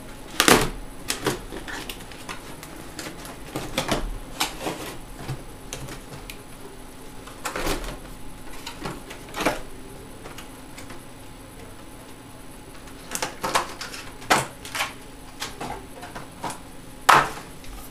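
Cardboard packaging being opened and handled, an inner box and a plastic-wrapped docking station slid out: irregular knocks, taps and rustles. The loudest knocks come just after the start and near the end.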